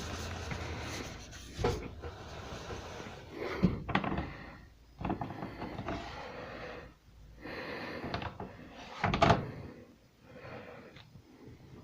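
Irregular clunks, knocks and scrapes of something being handled and worked, in short stretches with brief quiet gaps between; a few sharper knocks stand out.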